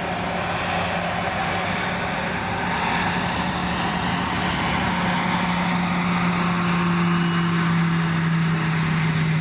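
Piper PA-46-500TP Meridian's Pratt & Whitney PT6A turboprop at takeoff power during the takeoff roll: a steady low hum over a broad rushing sound, slowly growing louder as the aircraft accelerates.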